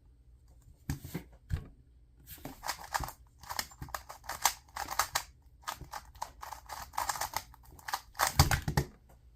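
2x2 speed cube being turned rapidly, a quick run of plastic clicking and rattling turns in bursts, with a louder knock near the end.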